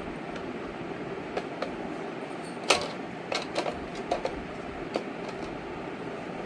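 Meixi popcorn machine running with a steady whir while kernels pop at irregular intervals as they heat. The pops come singly at first, the loudest just under three seconds in, then several in quick succession.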